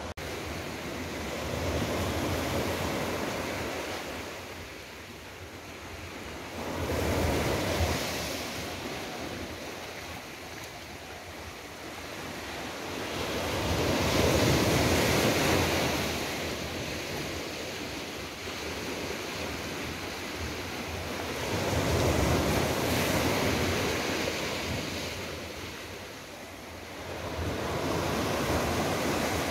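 Small waves breaking and washing up a sandy beach. The surf rises and falls in five surges about six to eight seconds apart.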